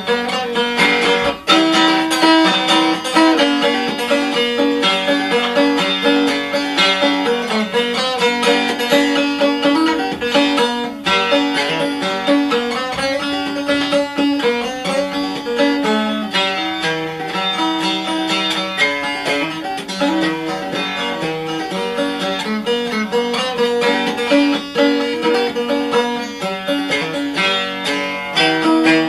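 Five-string syrup-can banjo played solo: a fast, continuous run of plucked notes.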